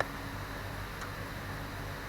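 A steady low mechanical hum, with a short click at the start and a faint tick about a second in.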